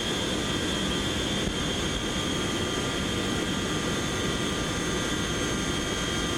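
Boeing 720's Pratt & Whitney JT3D turbofans at full takeoff power: a steady, loud roar with high whine tones held at a constant pitch.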